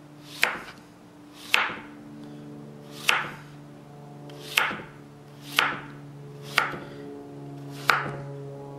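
Chef's knife slicing zucchini on a wooden cutting board: seven sharp strikes of the blade through the squash onto the board, about one a second.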